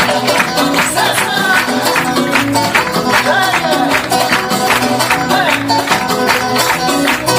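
Upbeat Latin-style band music with plucked guitar, a steady percussion beat and bass.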